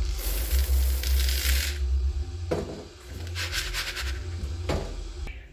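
Dry samp (crushed maize kernels) poured from a cup into a plastic bowl: a long hissing rattle of grains for about a second and a half, then a few shorter rattles as the kernels shift while the bowl is handled.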